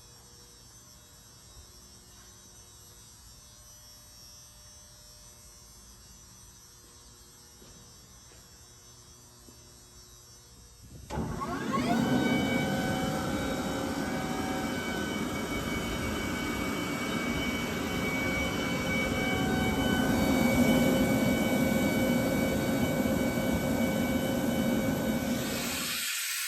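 Sullair ES8-30H 30 HP rotary screw air compressor starting about 11 s in: its electric motor spins up with a rising whine, then runs steadily with a mix of steady tones. Near the end the low running sound cuts off suddenly, leaving a hiss of air.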